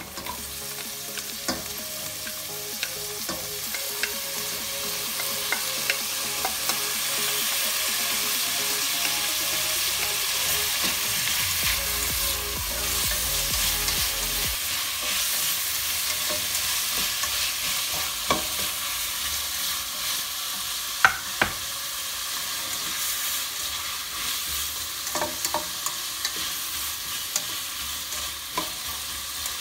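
Diced carrots and onions sizzling in hot oil in a stainless steel pan, the sizzle building over the first few seconds as the carrots go in. They are stirred with a black slotted spatula, with a few sharp knocks against the pan.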